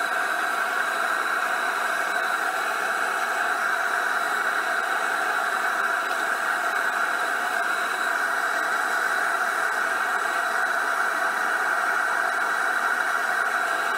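Single-burner propane forge running at 7 psi, its steady burner roar played back at about four times speed, so it comes out as a high, even hiss with no low rumble.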